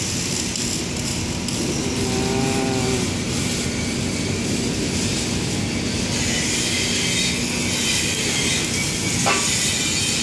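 Steady machinery noise of a steel fabrication shop: a constant low hum under a broad hiss, the hiss growing brighter about halfway through. Faint distant voices come through twice.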